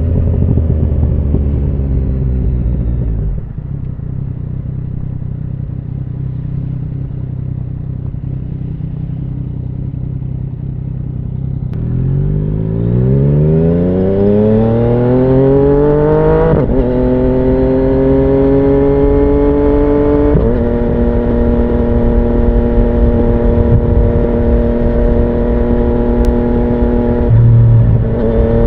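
2017 Yamaha MT-09's inline three-cylinder engine through an Akrapovic full exhaust: it slows with falling pitch, then runs low and steady for about eight seconds. It then pulls away, the pitch climbing through two upshifts before settling into a steady cruise and rising again near the end.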